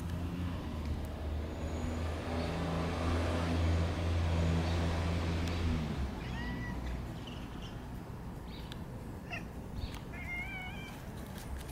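A stray cat meowing: a short cry about six seconds in, then a longer wavering meow near the end. Before that, a passing vehicle's low engine hum swells and fades over the first six seconds.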